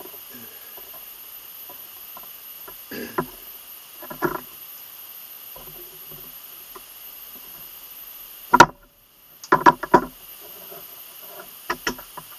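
Clicks and rustles of leather stitching, with tongue-and-groove pliers gripping a needle to pull waxed thread through the leather. A loud sharp snap comes about two-thirds of the way in, followed by a quick run of clicks. A few more clicks come near the end as the pliers are laid down on the wooden bench.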